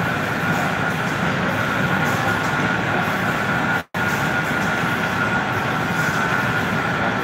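Steady machine noise from a bread-bakery production line filling a large factory hall, with a thin steady whine above it. The sound cuts out for an instant about four seconds in.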